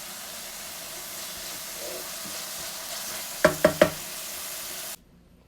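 Food sizzling steadily in an oiled frying pan, with three quick ringing knocks of a utensil against the pan about three and a half seconds in. The sizzle cuts off abruptly near the end.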